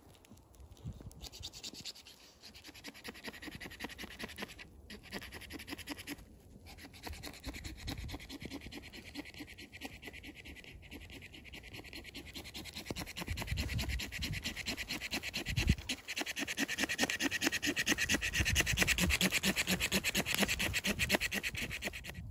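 Footsteps crunching through snow, a dense crackle with soft thumps underfoot, pausing briefly twice and getting louder after the middle.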